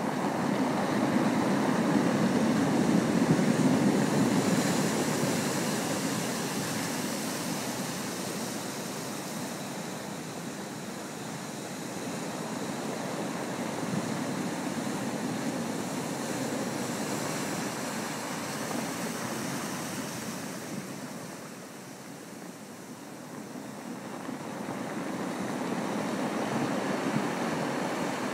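Sea surf breaking and washing back over a shingle beach of rounded pebbles, the backwash rolling the stones. The noise swells and eases with each wave: loudest in the first few seconds, falling to a lull about three quarters of the way through, then building again with the next wave.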